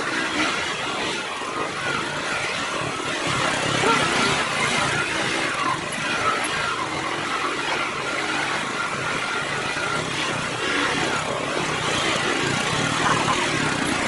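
Motorcycle running steadily on the move, its engine under a dense rush of wind noise.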